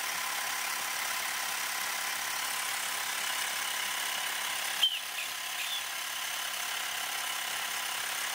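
Xiaomi portable electric air pump running steadily with a constant whine, driving a Wilesco toy steam engine on about 6 psi of compressed air. A single sharp click about five seconds in.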